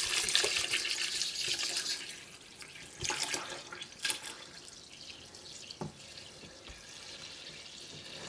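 Distilled water pouring in a stream from a large plastic jug into a stainless steel stock pot of grated soap scraps, splashing steadily. The pour is loudest for the first two seconds, then softer, with two brief louder surges about three and four seconds in.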